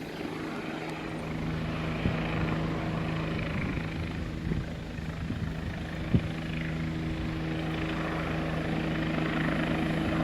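Helicopter in flight overhead: a steady drone of engine and rotor that slowly grows louder.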